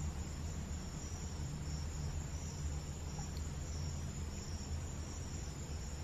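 Crickets chirping in a steady, evenly repeating pulse over a low hum.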